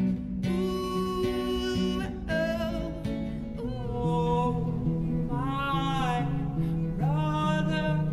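A man singing with acoustic guitar accompaniment. About two seconds in, it cuts to another man singing over guitar.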